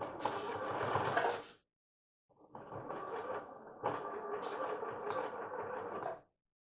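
Electric sewing machine stitching lace in two runs: about a second and a half, a short pause, then about four seconds before it stops.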